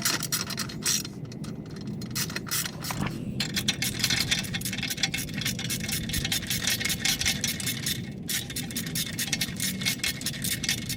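Rapid metallic clicking and scraping of tool work on the skid plate's mounting hardware, in long runs broken by a few short pauses.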